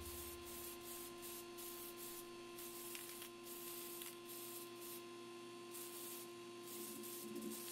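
Aerosol spray-paint can (Krylon Short Cuts hobby paint) hissing in several long bursts with short breaks between them, over a steady low hum.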